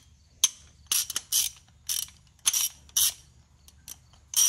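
Half-inch-drive ratchet worked back and forth by hand, its pawl clicking over the gear teeth in short quick bursts, one about every half second.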